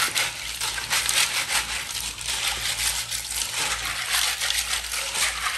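Water snails (ghonghi) scrubbed by hand in a metal pot to clean them: a dense, continuous clatter and grinding of shells against each other and the pot.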